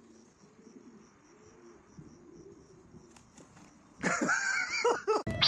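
A faint rustle, then about four seconds in, a parrot gives a loud run of squawking calls that bend up and down in pitch, with another call right at the end.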